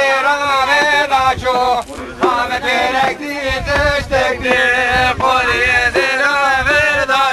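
Men singing a folk dance song in short, wavering phrases, accompanying a hand-in-hand line dance.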